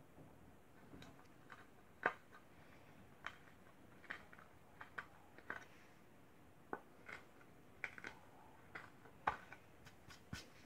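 Light, irregular clicks and taps of a small drill bit and fingers handling a pine board, with the sharpest click about two seconds in and another near the end.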